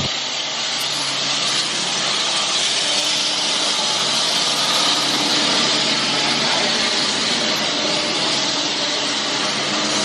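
Steady machinery noise with a running engine under a strong, even hiss.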